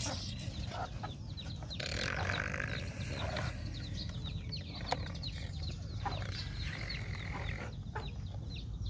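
Chickens clucking and peeping, a steady run of many short high calls, with one sharp click about five seconds in.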